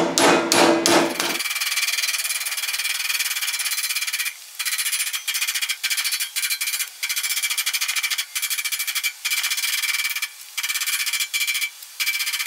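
Hammer blows on a 0.080-inch aluminum sheet flange being bent down to 90 degrees over clamped steel square tubing. A few heavy strikes about three a second open it, then after about a second and a half it turns into a rapid, dense run of lighter, higher taps in short spells with brief pauses.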